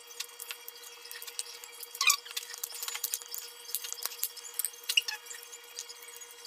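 Garlic cloves being peeled by hand: papery skins crackling and rustling, with knife clicks against the cutting board. A run of small irregular crackles and clicks, with a few sharper ones about two and five seconds in.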